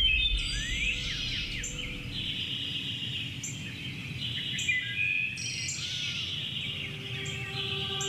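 A songbird singing repeated short, high phrases of quick up-and-down sweeping notes, about one phrase a second, over a faint hiss of background noise. Soft music sits faintly underneath.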